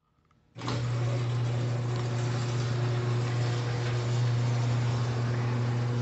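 Electric garage door opener running steadily as it raises a sectional garage door: a steady low motor hum that starts about half a second in.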